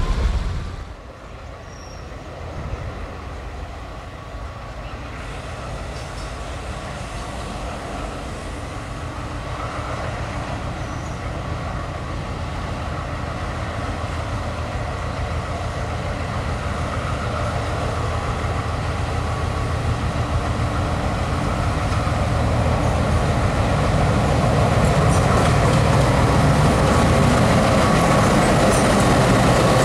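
Diesel locomotives of Alco type approaching with a train, the engine rumble growing steadily louder over the half minute, with a faint steady tone above it.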